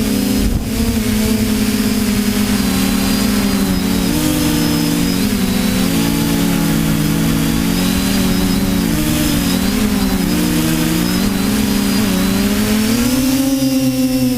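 TBS Discovery quadcopter's electric motors and propellers whining in flight. Several close pitches drift apart and back together as the motors speed up and slow, over a low rush of wind.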